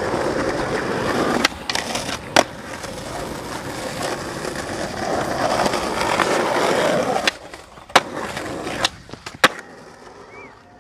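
Skateboard wheels rolling over rough concrete, with a few sharp clacks of the board hitting the ground. The rolling drops away after about seven seconds.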